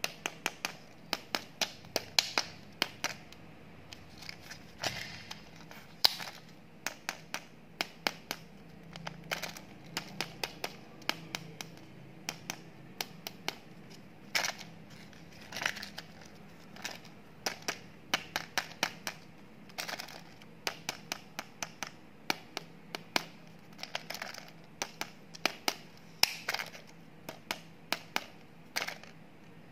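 Crisp crinkling and sharp plastic clicks as fingers handle and turn a sealed Wonder King plastic candy egg, its thin plastic shell and wrapping ticking and rustling in irregular quick clusters.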